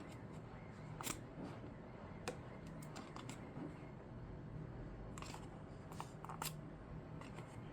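Faint scattered clicks and light rustling as a plastic dome security camera and its parts are handled and turned over by hand.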